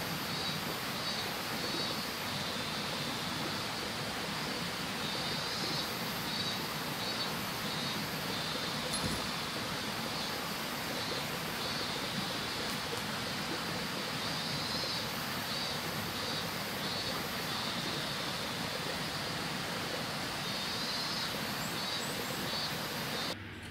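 Outdoor ambience: a steady rushing noise with high chirping that comes in short repeated trains every second or two, stopping suddenly near the end.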